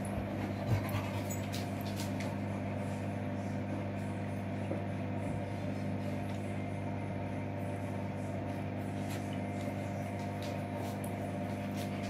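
Hoover front-loading washing machine in its wash cycle: a steady motor hum as the drum tumbles a sudsy load of laundry, with a short knock about a second in.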